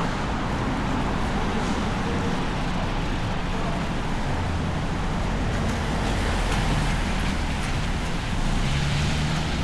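Downtown street traffic: a steady rumble and hiss of cars and buses passing, with a brief low engine hum near the end.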